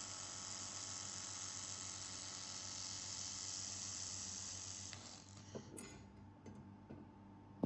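2000 W handheld laser welder with wire feeder welding mild steel: a steady sizzling hiss over a low machine hum, which cuts off about five seconds in, followed by a few faint clicks.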